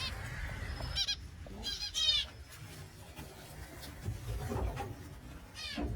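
Small caged finches giving short, high, nasal calls: one at the start, a quick run around one to two seconds in, and another near the end.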